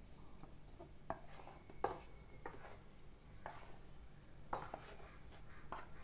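Faint, irregular taps and scrapes of a steel plate against a non-stick kadhai as a roasted gram flour and semolina mixture is tipped into hot ghee.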